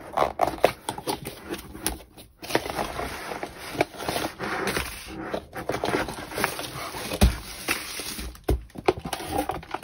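Rustling and scraping as a cardboard kit box is opened and its plastic-wrapped rolled canvas and other contents are pulled out. Many small clicks and taps run through it, with a heavier thud about seven seconds in as something is set down on the table.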